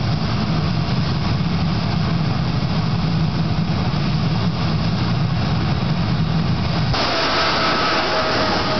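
Jet truck's jet engine running with a loud, steady rumble. About seven seconds in the sound changes abruptly to a high whine that slowly falls in pitch.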